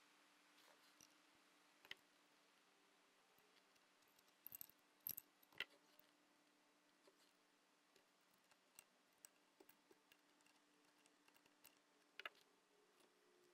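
Near silence with a few faint clicks and light metallic taps of air-line fittings and a wrench being handled on a pneumatic valve actuator. There is a short cluster of them about five seconds in and a single one near the end, over a faint steady hum.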